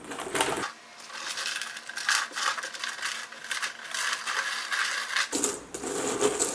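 Jigsaw puzzle pieces with a plastic backing being pulled apart by hand. The loose pieces give a busy clatter of many small clicks as they knock and tumble against each other.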